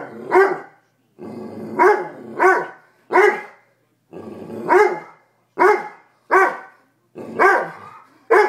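German shorthaired pointer barking about nine times, roughly once a second, with a low growl leading into several of the barks. This is alarm barking at a raw chicken foot he is afraid to touch.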